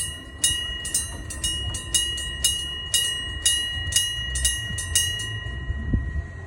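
Railway level-crossing warning bell clanging about twice a second, then stopping about five seconds in as the warning ends, its ring fading away.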